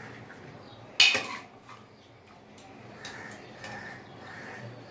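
Steel ladle scooping boiled jackfruit pieces out of a pressure cooker into a steel bowl: one sharp metal clank about a second in, then lighter clinks and knocks of the ladle against the pots.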